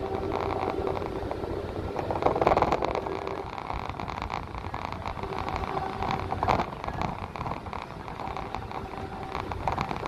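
A road vehicle driving along, heard from inside the cabin: steady engine and road noise with a faint hum, swelling louder about two seconds in, with a sharp knock about six and a half seconds in.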